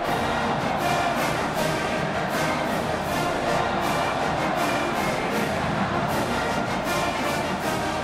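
Brass band music with a steady drumbeat, cutting in suddenly over the stadium crowd.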